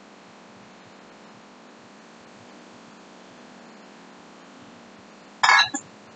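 Steady hiss of a laminar flow hood's blower, broken near the end by a sharp clink and a smaller second one as a small glass jar is handled.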